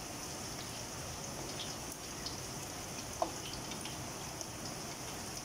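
Kikiam pieces sizzling in hot oil in a steel wok, a steady crackling hiss with scattered pops as they brown while being stirred with a wooden spatula. One sharp knock about three seconds in.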